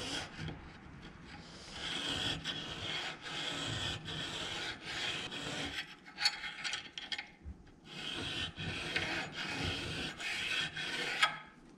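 Air-cooled VW camshaft thrust bearing shell, a soft metal, rubbed back and forth across a big steel file clamped in a vise: a steady metal-on-metal scraping in repeated strokes, with a short break a little past halfway. The thrust face is being filed down to give the camshaft end play where it was too tight.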